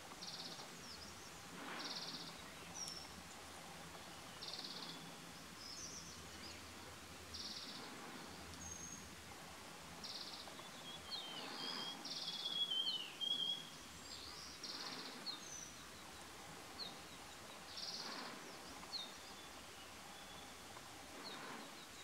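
Wild birds calling in forest: scattered brief high chirps, a short buzzy high note repeating every two to three seconds, and one longer wavering whistle about halfway through, which is the loudest sound.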